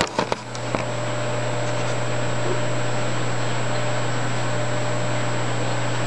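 Steady low hum and hiss of a running saltwater aquarium setup, its pumps and sump circulation. A few soft knocks in the first second.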